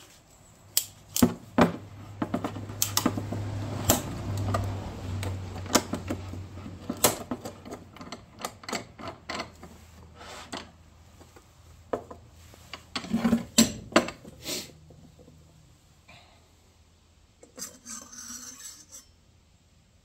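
ACDelco steel oil filter can being cut open in a clamp-style oil filter cutter: clicking and scraping of metal for several seconds as the cutter is worked. This is followed by a run of sharp metal clanks and knocks as the parts are handled on a wooden bench.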